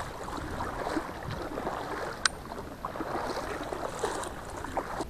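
Water sloshing and splashing around a small boat moving through shallow water along the reeds, with light scattered knocks and one sharp click about two seconds in.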